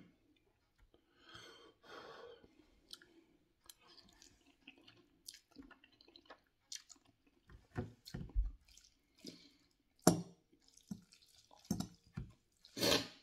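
A person eating noodles with a fork: intermittent slurping and chewing with wet mouth smacks, and a few sharper clicks that are loudest toward the end.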